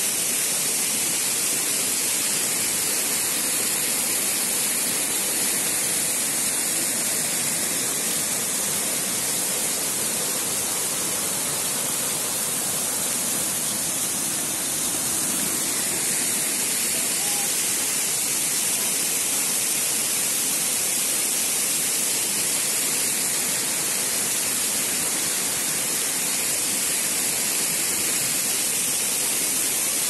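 Waterfall pouring and splashing onto rock: a steady rushing hiss, heavy in the high end, that holds an even level throughout.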